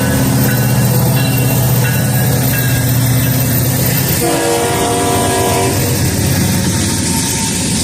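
Pitched-down locomotive horn sounding over loud train noise: a deep, low chord holds for about four seconds, then a higher chord sounds for about two seconds.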